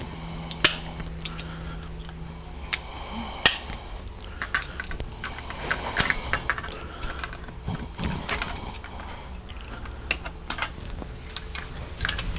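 Irregular metallic clicks and clinks of Ford 5R110W transmission parts being handled and set down during disassembly, a few with a short ring.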